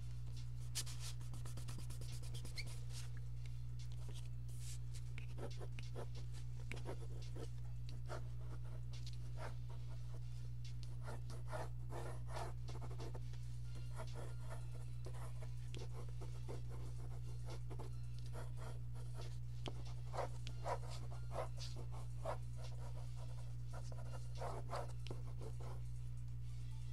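Pencil scratching on paper in quick, irregular sketching strokes, over a steady low electrical hum.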